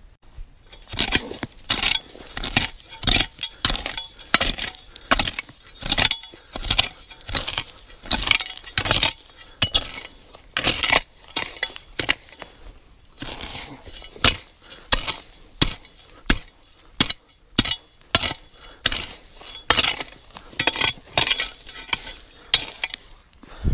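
A curved machete-type blade hacking through brush and branches: a long run of swishing chops, about one and a half a second, easing off briefly around the middle before picking up again.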